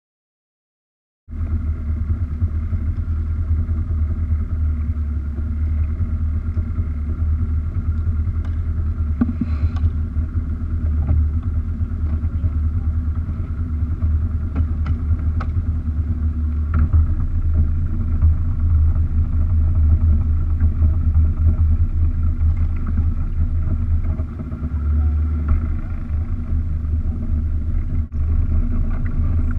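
A boat's engine running steadily as a low rumble, starting about a second in.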